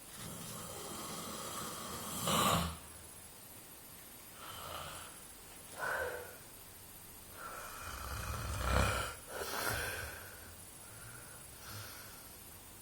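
A sleeping person snoring deeply: about six uneven snoring breaths, the longest and loudest about nine seconds in.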